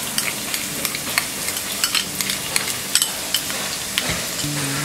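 Finely chopped red onion sizzling in hot oil in a pan, a steady hiss with frequent sharp crackles and pops.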